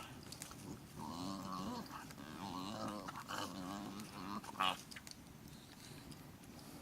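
Dog whining and yowling in wavering, drawn-out calls, with a short sharp sound about four and a half seconds in.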